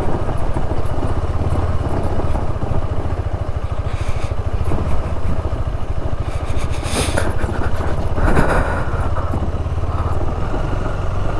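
Motorcycle engine running steadily while riding, with road and wind noise. Short noisy bursts come about four seconds in and again between seven and eight and a half seconds.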